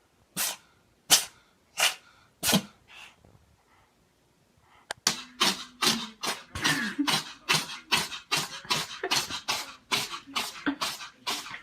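A cat sneezing four times in quick succession, short sharp sneezes less than a second apart. About five seconds in, after a click, a fast run of short sharp breathy bursts starts, about three a second.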